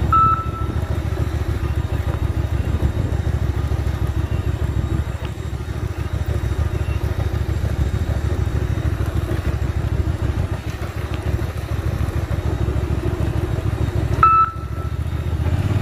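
Small motorcycle engine running steadily at low speed. A short, high electronic beep sounds once at the start and again near the end.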